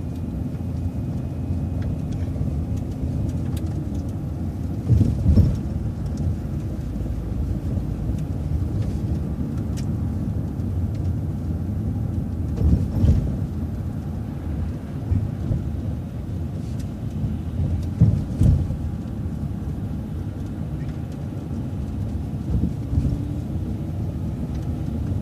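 City transit bus running, heard from inside the cabin: a steady low engine and road rumble with a few short jolts or thumps, and the engine's pitch rising near the end as the bus pulls away.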